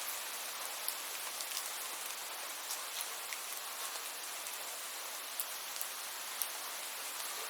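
Steady rain, an even hiss dotted with scattered sharp drip ticks.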